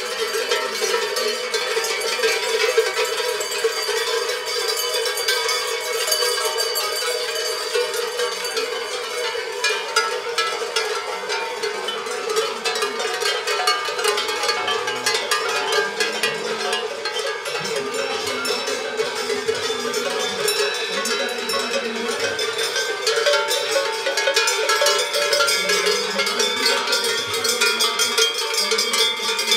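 Many cowbells on a herd of walking cattle, clanking and ringing together in a continuous jangle.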